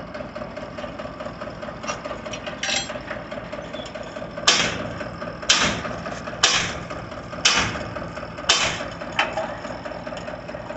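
Five hammer blows on the metal of a borewell pipe-lifting rig, about one a second, each ringing briefly. Under them the rig's tractor engine keeps running with a steady hum.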